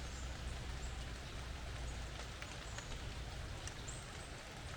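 Rainwater dripping off forest leaves: a steady soft patter with scattered faint drip ticks, over a low rumble.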